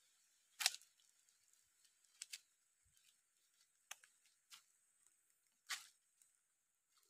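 Dry fallen leaves and twigs crackling underfoot on a mangrove floor: a few faint, sharp snaps spread over several seconds, the loudest about half a second in and another near the end.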